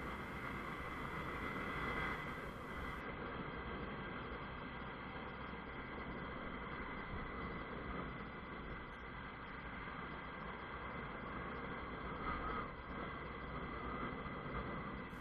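Honda CBF 125 motorcycle riding along a street: steady wind and road rush with the single-cylinder engine running underneath.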